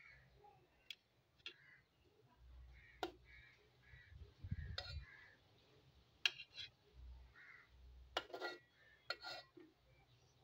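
A metal spoon knocking and clicking a dozen or so times, some in quick pairs, while boiled peeled bananas are set down on a paper plate. Soft, dull handling bumps come in between.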